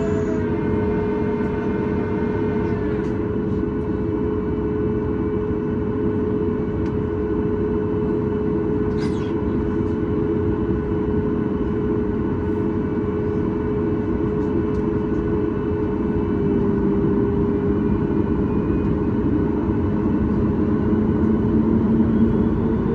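Cabin noise of a Boeing 737 MAX 8 with its CFM LEAP-1B jet engines running: a steady rumble with a steady engine tone, the tone rising slightly near the end.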